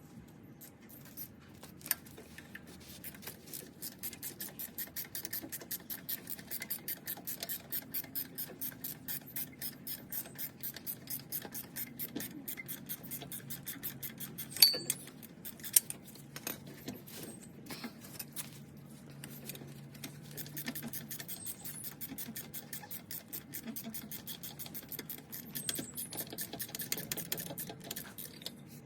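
Ratchet wrench clicking rapidly and steadily as the A/C compressor's mounting bolts are unscrewed, with a couple of louder metal knocks about halfway through.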